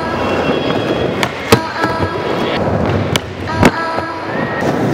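Skateboard wheels rolling on wooden ramps, with several sharp, irregularly spaced clacks of the board against the ramp, over background music.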